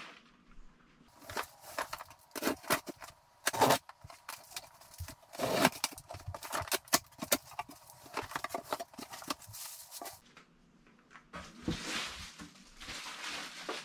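A cardboard shipping box being opened and handled by hand: irregular knocks, taps and scrapes of cardboard and packing, then softer rustling as the contents are moved near the end.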